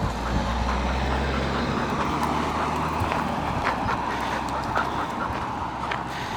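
A vehicle engine's low hum that fades out about halfway through, over outdoor street noise with scattered light clicks.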